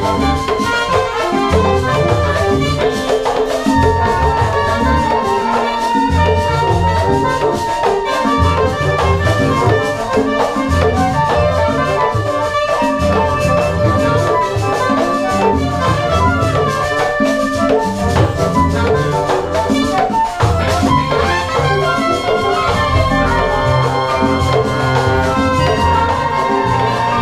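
A large mixed ensemble plays live: batá drums keep up a dense rhythm while flute, horns and strings sound above them, with long held high notes from about four seconds in.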